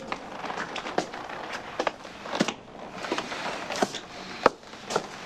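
Irregular knocks and clicks of a man's footsteps crossing to a door and his hand working the door handle, over a steady background hiss.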